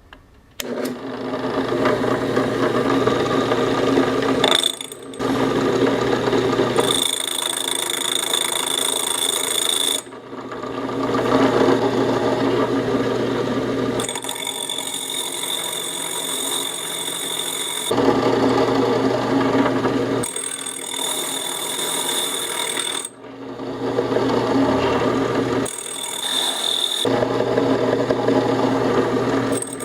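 Power drill turning a 7/8-inch diamond hole saw through a glass bottle, water-cooled, with a steady motor hum. It runs in stretches of a few seconds with short breaks, and a high whine comes and goes in some of the stretches.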